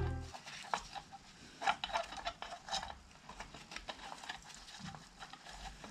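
Scattered light metallic clicks and taps from the throttle linkage of a David Brown 996 tractor being worked by hand.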